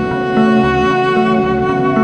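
Instrumental background music: held notes over a bass line that comes back about every half second.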